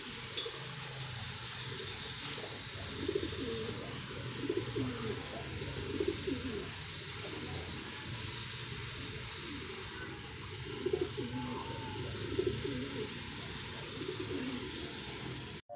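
Pigeons cooing, a string of low coos repeated every second or two over a steady hiss.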